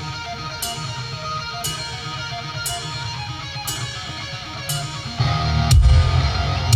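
Rock music with strummed electric guitar played back through an Electro-Voice ETX-35P three-way PA speaker with dual ETX-18SP subwoofers, heard in the room. A cymbal is struck about once a second, and about five seconds in the band comes in louder with heavy bass.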